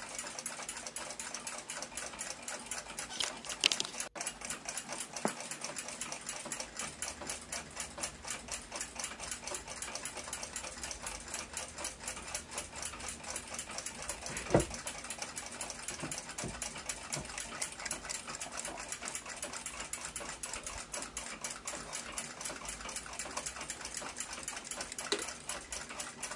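Rapid, steady clock ticking, with a few louder sharp clicks as metal nippers pull the dial's small fasteners.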